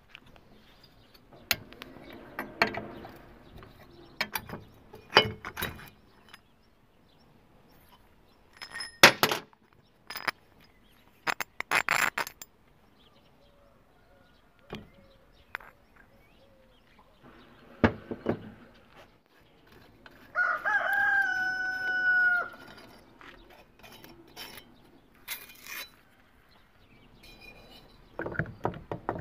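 Sharp knocks and clinks of aluminium engine parts being handled and set down. About two-thirds of the way through, a rooster crows once, a single held call of about two seconds.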